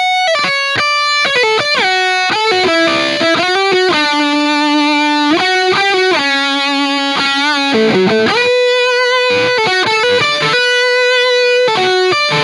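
Electric guitar playing a slow lead line of held single notes with quick, narrow vibrato of the goat-like 'bleating' kind, with a few string bends in between.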